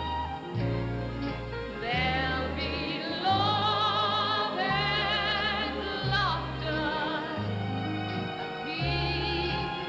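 Orchestra playing an instrumental passage, with wavering, vibrato-laden melody lines over a bass line that moves to a new note about once a second.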